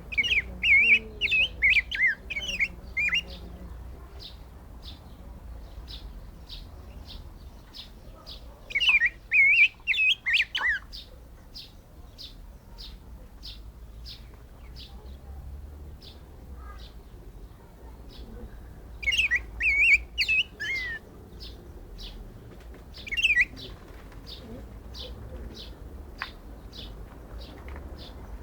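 Black-backed grosbeak (Rey del Bosque) singing in short bouts of rich, warbled whistled phrases, four times with pauses between them. Between the bouts, short high notes repeat steadily about twice a second.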